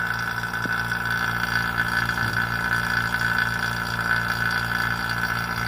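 Vacuum pump running steadily with a constant hum and a steady high whine, holding a vacuum chamber close to full vacuum. It is kept running because the chamber lid's seal leaks slightly.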